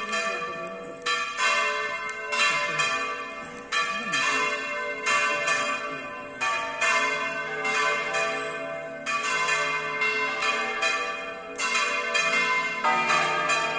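Church tower bells being swung full circle (Spanish volteo), several bells striking one after another roughly every second, each strike ringing on into the next.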